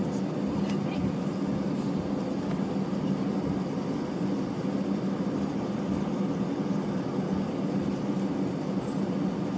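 Steady cabin drone inside an Airbus A320-200 as it taxis: the engines at low taxi power and the cabin air system make a constant low hum.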